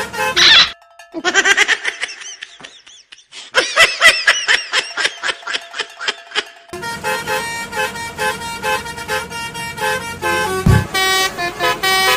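Telolet multi-tone bus horn playing a tune: first wobbling tones that warble up and down in quick pulses, then, from about halfway, a fast run of steady notes.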